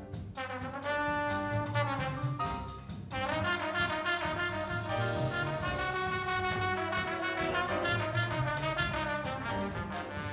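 Live jazz sextet playing: trombone and soprano saxophone hold and move between long notes over double bass, piano and drums, with a steady ride cymbal pattern. The horn line pauses briefly about three seconds in, then comes back on a new, fuller chord.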